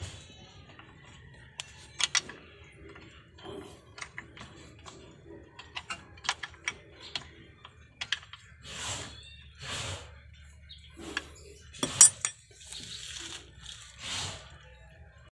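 Wrench and hand tools clicking and clinking on the metal fittings of a clutch slave cylinder as it is fitted, with a few short rustles; one sharp clink about twelve seconds in is the loudest.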